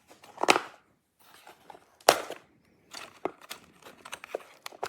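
Small objects and packaging being handled: rustling and clicking, with two louder rustles about half a second and two seconds in, and lighter clicks after.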